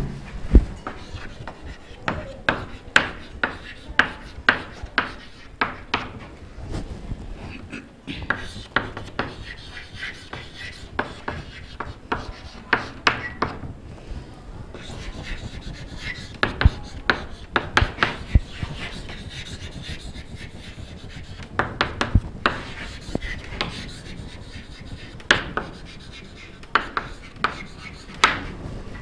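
Chalk writing on a chalkboard: irregular clusters of sharp taps and short scratchy strokes as each letter and symbol is drawn.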